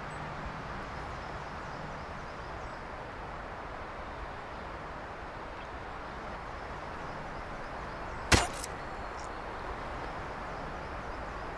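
Steady outdoor background hiss, broken about eight seconds in by a sudden sharp impact with a quick second knock right after it, a hit sound in a horror scene.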